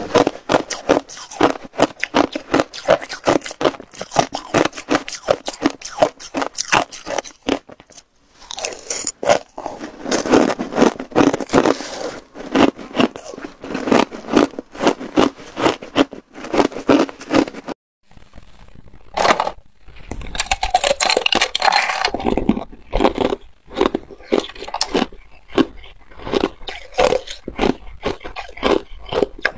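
Close-miked crunching and chewing of hard ice chunks, in quick sharp crunches several a second, with a couple of brief pauses.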